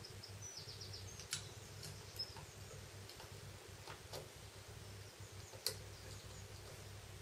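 Faint clicks and taps of a Samsung Galaxy S1's logic board being pressed into its phone frame by hand, a few light clicks spread out with the clearest near the end, over a low steady hum.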